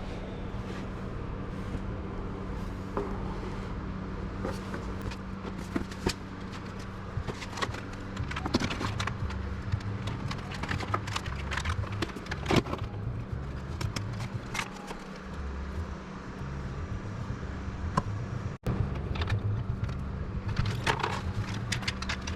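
Scattered clicks, rattles and scrapes of a router and its network cables being handled and unplugged, over a steady low hum.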